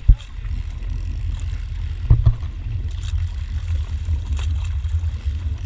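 Steady low rumble of wind and water buffeting a camera held just above choppy water, with sharp knocks of water or spray hitting it at the start and twice about two seconds in.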